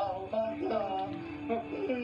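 Background music with a held, sung-like melody; the pouring of the soda is not clearly heard over it.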